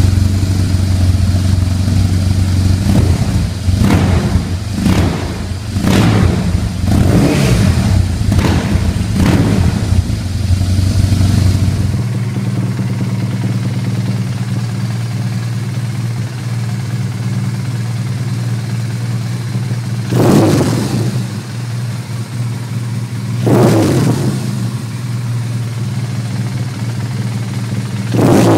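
BMW R 1200 R boxer-twin engine through an aftermarket slip-on silencer, idling and blipped with about eight quick throttle revs in a row. After a cut it idles again, with a single rev about twenty seconds in, another about three seconds later, and one more near the end.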